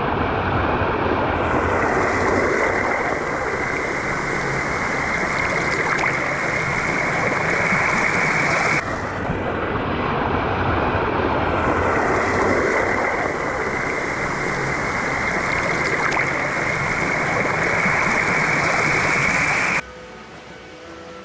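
Steady loud rush of a small waterfall splashing close by, with a brief break about nine seconds in. It cuts off suddenly near the end, giving way to quiet music.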